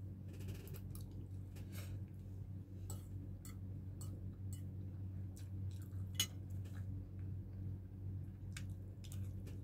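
Metal spoon clinking and scraping on a plate while eating rice: a scatter of short, light clicks, with one sharper clink about six seconds in. A steady low hum runs underneath.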